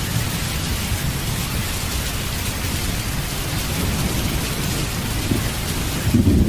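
Steady rain falling, with a low rumble of thunder underneath that swells louder near the end.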